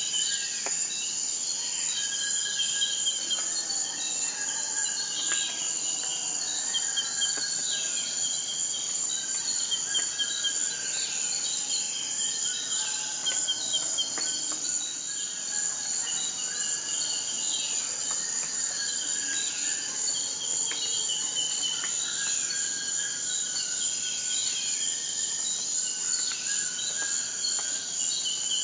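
Steady, high-pitched insect chorus with birds calling repeatedly over it in short notes and quick downward-sweeping calls.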